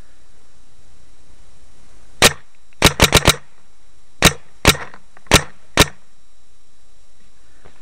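Paintball marker firing sharp, loud shots: a single shot, a quick burst of four, then four more single shots about half a second apart.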